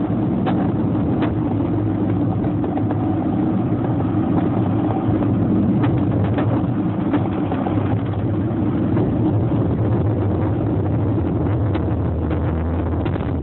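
A vehicle's engine running with a steady low drone and road noise, and a few faint clicks.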